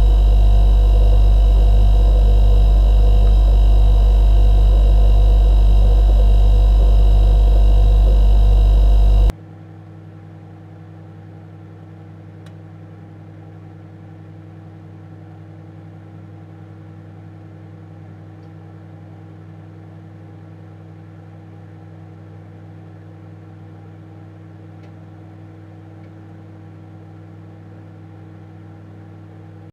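An electric kitchen appliance running with a loud, steady, deep hum that cuts off abruptly about nine seconds in, leaving a much fainter steady electrical hum.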